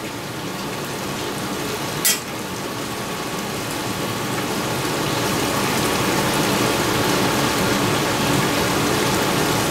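Crepe batter and banana slices sizzling on a hot flat-top griddle: a steady hiss that grows gradually louder, with one sharp click about two seconds in.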